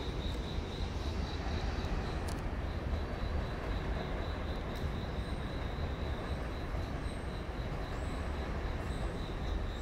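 Steady low rumble of train-station ambience, with a faint high-pitched tone pulsing about three times a second.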